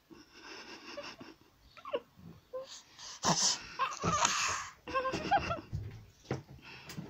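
A baby breathing hard and vocalizing in short breathy bouts with brief high coos and squeals, loudest about three to five seconds in.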